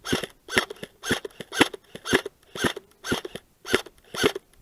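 Footsteps trudging through knee-deep snow, one crunching step about every half second.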